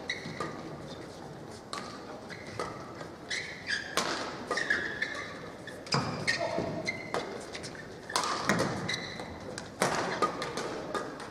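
Badminton hall background: scattered sharp knocks and thuds, short high squeaks, and voices, echoing in the large hall.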